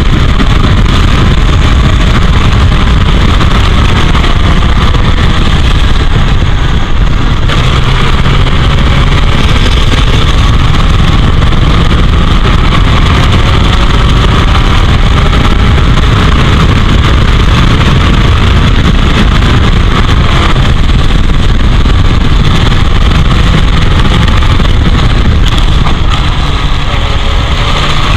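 Heavy wind noise buffeting a suction-cup-mounted onboard camera in an open-cockpit 1984 Royale S2 sports racer at racing speed, over its Ford 2.0-litre four-cylinder engine climbing through the revs several times and dropping back at each upshift or lift.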